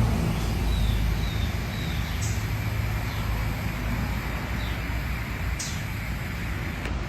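A steady low rumble, like a vehicle engine running, with a few faint short chirps in the first two seconds.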